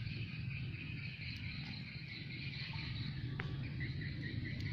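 Insects chirring steadily, with a quick series of short chirps near the end, over a low rumble.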